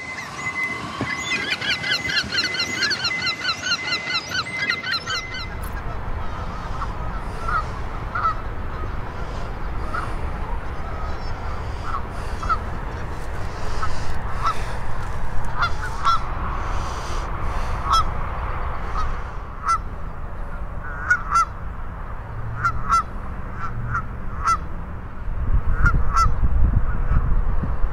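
Gulls giving a rapid run of laughing calls for the first few seconds. Then a flock of Canada geese honking, with short honks scattered one or two a second, and a low rumble rising near the end.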